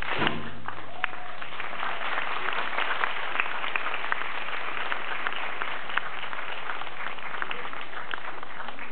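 Audience applauding steadily in a hall. The last beats of the drum-and-song music break off within the first second.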